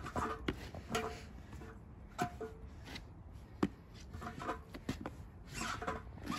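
Playground spinner bowl turning on its post, giving irregular knocks and clicks with a few brief squeaks.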